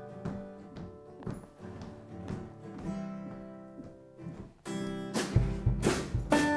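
Acoustic string-band music: banjo and ukulele picking and strumming softly. About two-thirds of the way in it turns much louder, with hard strums and a deep bass coming in.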